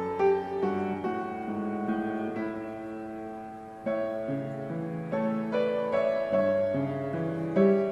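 Background piano music: a gentle melody of changing notes over chords.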